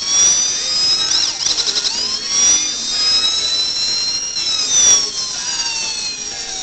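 Electronic police siren from the sound module of a 1/18-scale model Ford Crown Victoria police car: a high-pitched wail sweeping slowly up and down, with a brief fast warble about a second in.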